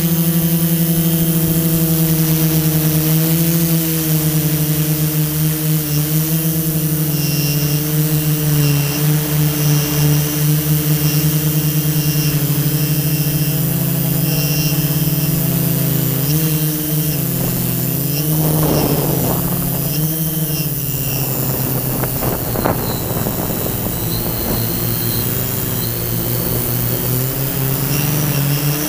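Quadcopter drone's electric motors and propellers whining loudly close to the microphone, the pitch wavering as the drone manoeuvres. About two-thirds of the way through, the pitch drops for a few seconds and a rush of noise comes in over it.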